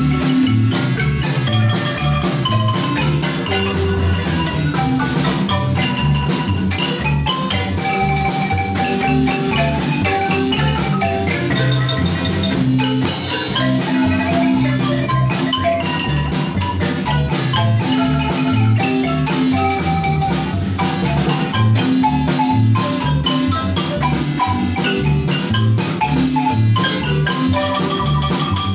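Marimba ensemble of two large wooden marimbas, each played by several mallet players, performing a tune with long held melody notes over a regular bass pulse, backed by a drum kit. A cymbal crash about 13 seconds in.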